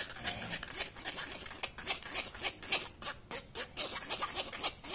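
Metal spoon scraping and pressing blended tomato puree through a stainless steel mesh strainer, in a run of short, uneven scraping strokes, a few each second, to sieve out the seeds and skins.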